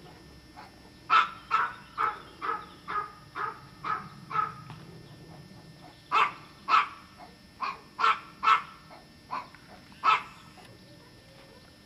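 A dog barking repeatedly: a run of about eight barks at roughly two a second, then after a pause of over a second a second, less even run of barks.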